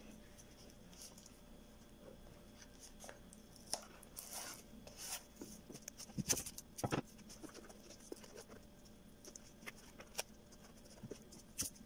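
Newspaper rustling and crinkling as it is handled, with scattered crackles of masking tape being pulled off the roll and torn; the loudest cluster comes about six to seven seconds in.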